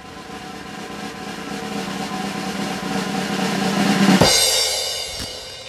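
Snare drum roll sound effect growing steadily louder for about four seconds, then a cymbal crash that rings and fades away.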